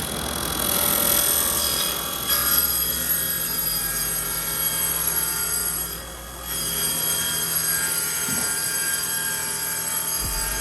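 Sustained bright, ringing bell-like tones, dipping briefly about six seconds in.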